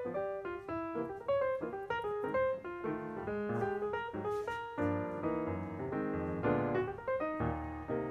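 Background piano music, a steady stream of quick notes.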